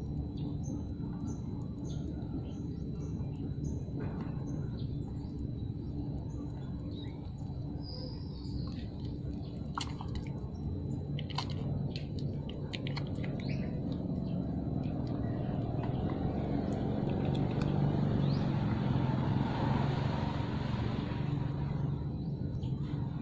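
Puppies suckling at their mother's teats, with a few soft smacking clicks in the middle, over a steady low background hum that grows louder in the second half and fades near the end. Faint bird chirps come near the start.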